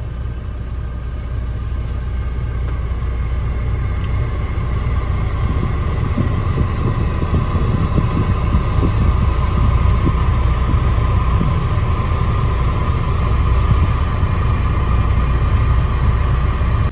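Western Star semi truck's diesel engine running, heard inside the cab as a steady low rumble, with a steady higher whine that slowly grows louder.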